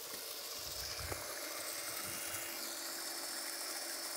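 Surface electric water pump on a borehole well with a deep-suction jet set, running steadily with a motor whine and hum, while its discharge pipe pours a stream of water onto the ground.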